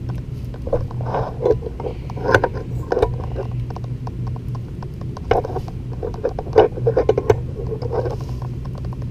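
Irregular metallic clicks and knocks as channel-lock pliers bend back a tab on a steel mounting bracket held in locking pliers, the jaws shifting and biting on the metal. A steady low hum runs underneath.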